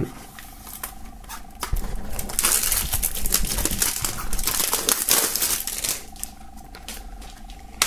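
Thin plastic shrink-wrap on a CD jewel case being cut open and peeled off by hand: dense crinkling and crackling with small clicks, loudest in the middle few seconds.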